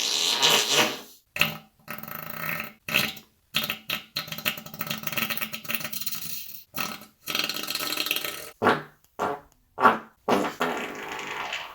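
Human farts, a string of about a dozen separate short ones broken by brief silences, some with a buzzy pitch and some more airy.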